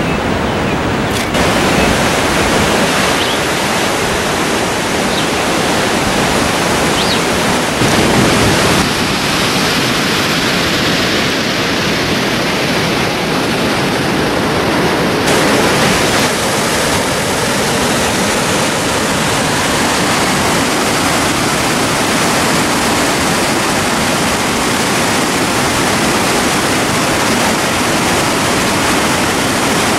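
Steady, loud roar of rushing whitewater.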